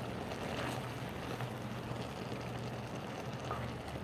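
Chopped tomatoes cooking down in a steel pot, a steady soft sizzle and hiss, with a ladle stirring through them.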